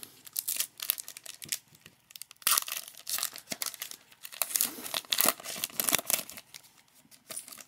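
Foil wrapper of a football trading card pack crinkling and tearing as it is pulled open by hand, in a run of sharp crackles. The loudest tearing comes about two and a half seconds in and again around five to six seconds in.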